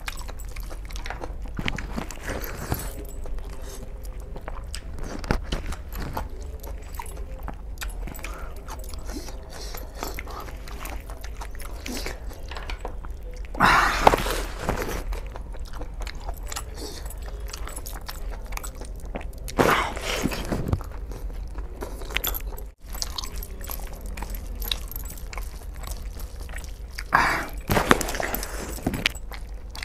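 A man eating bone-in chicken curry and rice with his hands: biting and chewing, with louder bursts about halfway through, a few seconds later, and again near the end. A steady low hum runs underneath.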